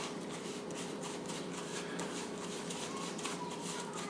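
Dry spice rub with brown sugar being mixed by gloved hand in a bowl: quick rustling, scraping strokes, several a second.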